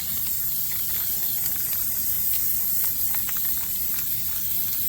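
Aerosol spray-paint can spraying in one long, steady hiss, putting a final coat of paint on a brake rotor.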